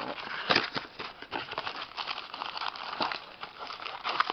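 Trading card box and its wrapped packs being handled: irregular crinkling and rustling with sharp clicks and taps, the loudest about half a second in.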